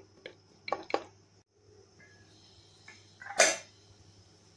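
A few light knocks of a spatula against a pressure cooker pot in the first second, then a single short, loud burst about three and a half seconds in.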